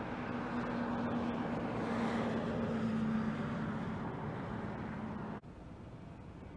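Road traffic: a vehicle going by on the road, its tyre and engine noise with a steady hum swelling to a peak about two to three seconds in. The sound cuts off suddenly about five seconds in, leaving a fainter outdoor background.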